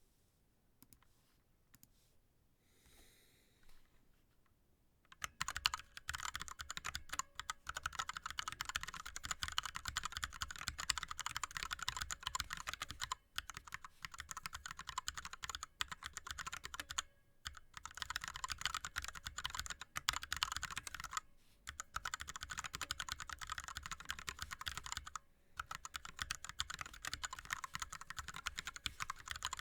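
Fast continuous typing on an ErgoDox mechanical keyboard with Cherry MX Red linear switches and DSA keycaps. It begins about five seconds in, after a near-quiet start, and is broken by brief pauses every few seconds.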